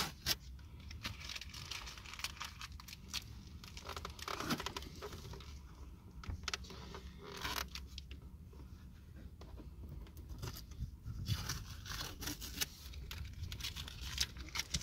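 Faint handling noises: rustling, scraping and scattered small clicks over a low steady rumble.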